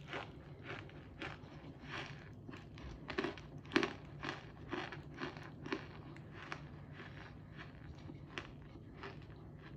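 Close-miked biting and chewing of crunchy cornstarch: a run of sharp crunches, about two to three a second, loudest a little under four seconds in and lighter after about six seconds.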